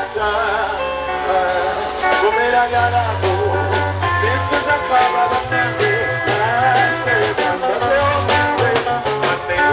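A man singing into a microphone over band music, with electric bass notes and a drum kit keeping the beat.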